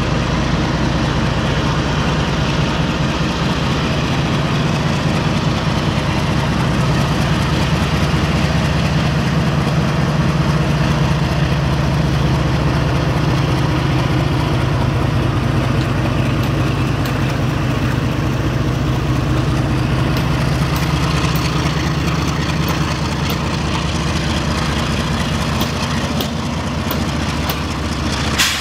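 GE WDG4G diesel-electric freight locomotive passing close by under power, its engine a loud, steady low drone. A single sharp click sounds at the very end.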